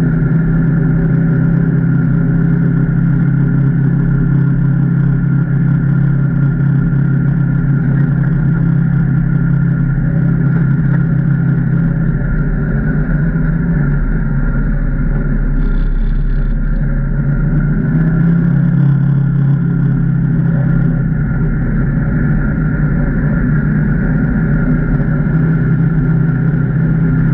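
Can-Am Maverick Trail 800 side-by-side's V-twin engine running steadily while under way, mostly at a constant pitch, easing off slightly for a few seconds about halfway through.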